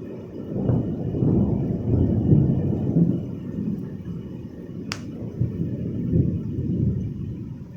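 Thunder rolling: a low rumble that swells about half a second in and slowly fades, with one short sharp click partway through.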